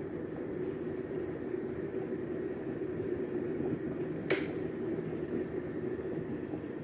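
A steady low hum, with one sharp click about four seconds in.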